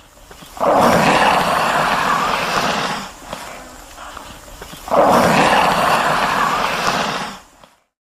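Komodo dragon hissing: two long, rough, noisy breaths of about two seconds each, the second starting about five seconds in.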